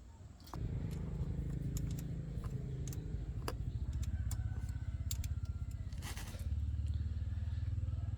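Motor tricycle's small engine starts abruptly about half a second in and runs steadily, its speed shifting around the middle and again near the end, with a few light clicks over it.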